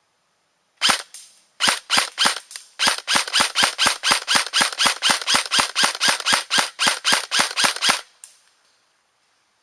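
Gunfire: a few separate sharp shots, then a steady string of about four shots a second for some five seconds that stops abruptly.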